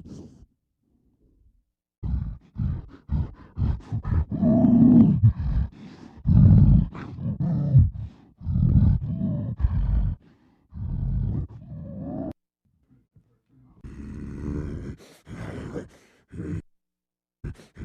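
Kothoga monster sound effects, a man's voice performing creature growls and grunts: a run of short, low, throaty calls. It stops briefly near the start and again about two-thirds through, followed by a rougher, breathier growl.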